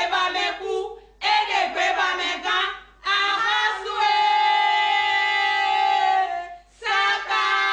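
A high voice singing in phrases with short breaths between them, holding one long steady note for about two and a half seconds in the middle.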